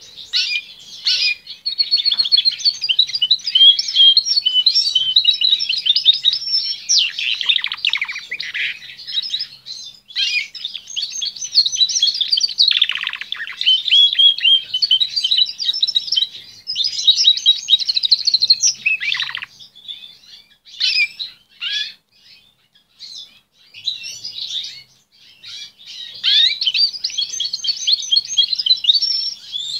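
Canary singing long, rapid warbling and trilling phrases. The song breaks into short snatches about two-thirds of the way through, then runs full again near the end.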